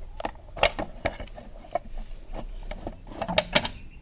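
Irregular clicks and knocks of a screwdriver and the headlight's plastic parts as a screw on the Royal Enfield Himalayan's headlight assembly is undone, with a quick cluster of sharper clicks near the end.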